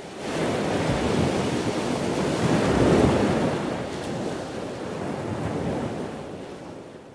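Ocean waves surging and breaking. The wash builds to its loudest about three seconds in, then eases off.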